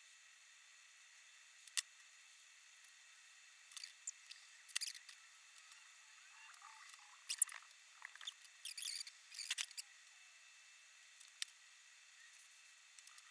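Faint clicks and clacks of hard 3D-printed plastic parts being handled, fitted together and set down on a wooden table. There is a denser run of scratchy clicks about two-thirds of the way through.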